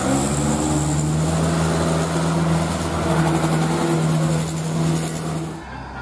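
Bus horn sounding one long, steady low note over background noise, cut off suddenly about five and a half seconds in.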